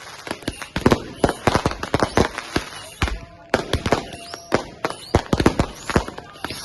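Fireworks and firecrackers going off in a dense barrage of sharp cracks and bangs, several a second, with a short rising whistle about halfway through.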